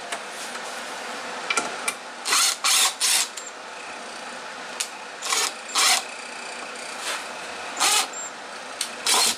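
Cordless impact driver run in short bursts of a fraction of a second, about seven in all, driving into pine boards: three close together about two seconds in, two more past the middle and two near the end.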